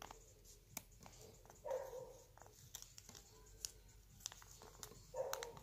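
Quiet room with small, sharp ticks as long fingernails handle a paper measuring strip, and two faint dog barks in the background, about two seconds in and near the end.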